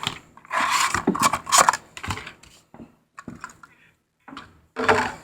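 Crinkling and rustling of packaging being handled as a small model car is unpacked from its box, in several bursts with short pauses.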